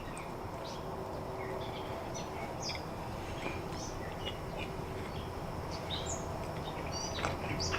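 Birds chirping in the background: scattered short, high chirps and tweets, several a second at times, over a steady outdoor hush.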